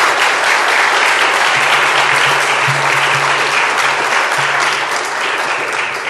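Audience applauding, starting to die down near the end.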